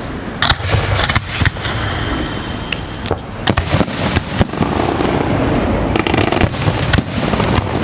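Aerial fireworks going off in a dense, irregular string of sharp bangs and crackles over a steady rumble.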